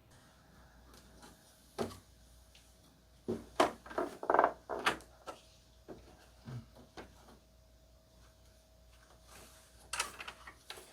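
Knocks, clicks and rattles of plastic parts being handled: one knock about two seconds in, a quick cluster of clattering knocks a second later, and a few more clicks near the end, over a faint steady hum.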